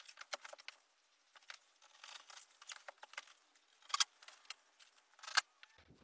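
Faint, scattered taps, scuffs and clicks of a drywall sheet being handled and pressed against the wall studs, with two sharper clicks about four and five and a half seconds in.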